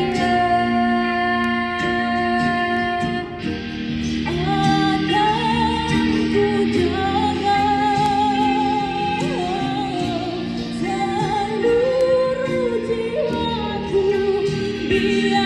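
A song sung live with instrumental backing, with long held notes that waver in pitch.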